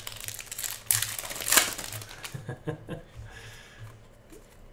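Foil wrapper of a Panini Contenders basketball card pack crinkling as it is torn open, loudest over the first two seconds. After that come softer ticks and rustles as the cards are handled.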